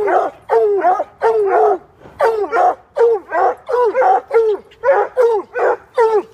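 Two coonhounds baying in quick, loud, repeated barks, about two to three a second, each bark dropping in pitch at its end. It is the treeing bay of hounds with a squirrel cornered above them.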